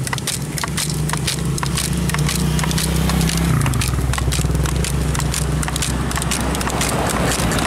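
High-pressure hand pump being worked up and down to charge an air rifle, with a quick, uneven run of sharp clicks and knocks. A low engine hum runs underneath and drops in pitch about three seconds in.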